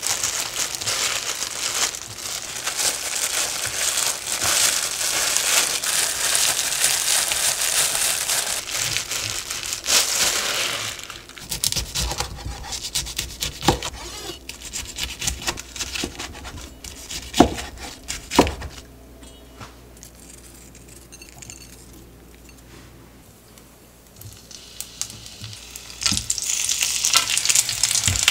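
Disposable plastic gloves crinkling as hands lay fillings onto a gimbap roll, followed by a kitchen knife slicing through the roll with a few sharp knocks on a plastic cutting board. Near the end, sausage and rice-cake skewers start sizzling in an oiled frying pan.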